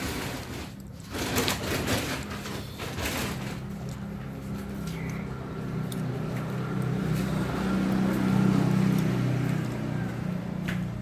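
A motor vehicle engine running with a steady low hum, growing louder to a peak near the end and then easing off, with a few brief rustles in the first seconds.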